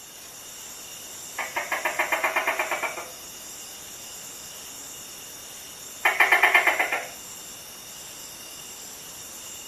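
Gecko calling in two quick series of rapid clicking chirps, the first about a second and a half long, the second shorter about six seconds in, over a steady high background hiss.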